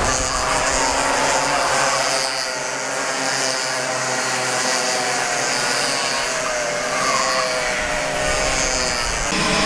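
Several racing kart engines running together as a pack goes through a corner, their overlapping pitches rising and falling with the revs. The sound changes abruptly near the end.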